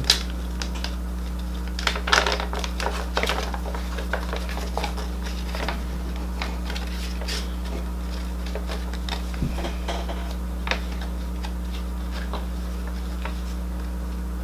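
Light paper rustling and small clicks of cards and a rules sheet being handled off to the side, busiest about two to three seconds in and sparse after, over a steady low electrical hum.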